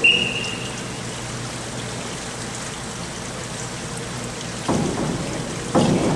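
A brief high whistle, the referee's signal for the diver to go, then the steady hiss of the indoor pool hall. About four and a half seconds in, sudden noises follow as the diver leaves the springboard and splashes into the water from the 3 m board.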